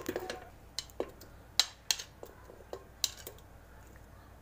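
A metal utensil clinking and scraping against a ceramic plate as chunks of chopped onion and tomato are pushed off it into an aluminium pressure cooker: a series of irregular light clinks and knocks, the loudest about one and a half to two seconds in.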